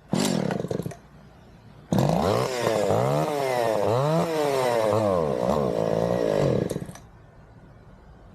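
Chainsaw engine firing briefly, then catching and running for about five seconds with its revs surging up and down unevenly before it dies: the saw will not run properly.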